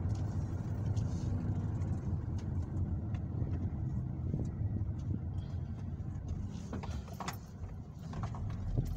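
Car driving at low speed, heard from inside the cabin: a steady low rumble of engine and tyre noise, with a few faint clicks and knocks in the second half.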